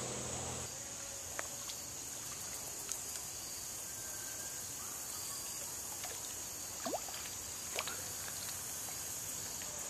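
Creek water trickling, under a steady high insect drone such as crickets, with a few faint clicks.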